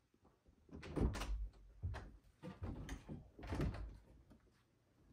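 Interior door being opened: a few muffled thumps and knocks from the door and its latch as it is unlatched and swung open.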